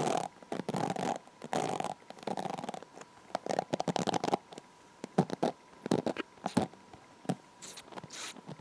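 Long hair being brushed and handled close to the microphone: a series of short rustling strokes, roughly one or two a second, with a few sharp crackles among them.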